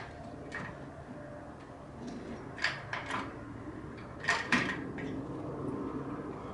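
Metal clanks and scrapes from an engine hoist, its chains and a lathe being lifted on them. There are several sharp knocks, the loudest a little past the middle.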